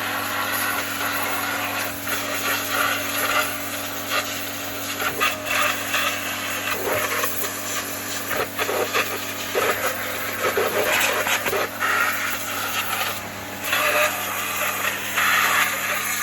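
A metal hand tool scraping and chipping irregularly at hardened, corroded deposits on engine parts, over a steady low hum.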